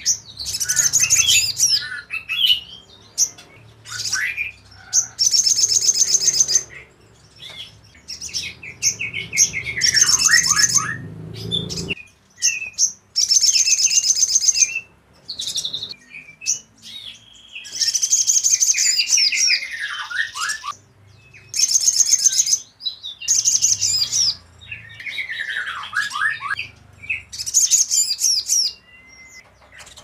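Caged sunbird singing: about ten bursts of high, rapid, buzzy twittering trills, several ending in a falling sweep. A low background rumble underlies the first half and cuts off suddenly about twelve seconds in.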